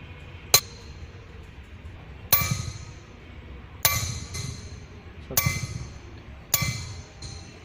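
Hammer striking a dot punch on a mild steel flat, five sharp ringing metallic taps about one every second and a half, marking dots before drilling.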